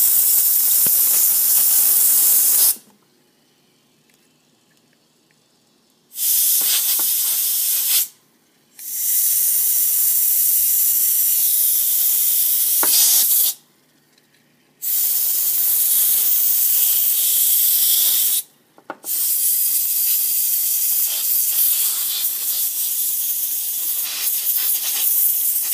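Can of compressed air duster spraying onto an iPhone 5 logic board, blowing rubbing alcohol out from under its shields. It gives five long hissing blasts of several seconds each, with short breaks between them and a longer one about three seconds in.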